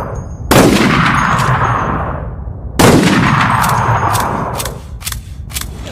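Bolt-action rifle fired twice, about two seconds apart, each shot trailing off in a long echo. After the second shot comes a quick run of sharp metallic clicks and clacks as the bolt is worked.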